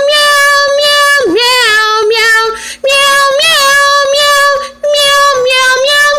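A woman singing unaccompanied in a high voice, holding long notes with a wavering vibrato, in three phrases broken by two short breaths.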